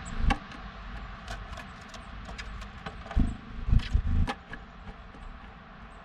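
Irregular sharp taps on wood with a few dull thumps, loudest in a cluster about three to four seconds in: a blue tit pecking and hopping about on a wooden birdhouse.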